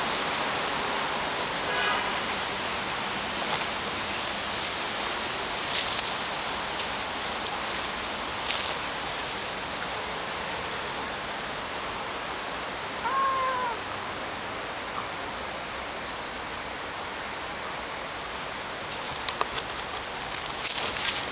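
Two tabby cats in a territorial standoff: a short rising-and-falling yowl about two-thirds of the way in, and a fainter one about two seconds in, over a steady hiss with a few sharp knocks.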